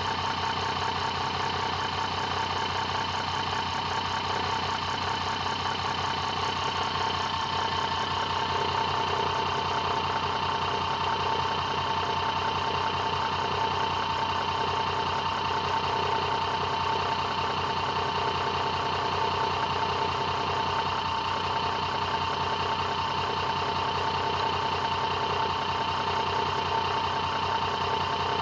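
Homemade charging rig of a brushless DC motor and microwave-oven transformer coils running at a steady speed: an even high hum over a fast, regular buzz.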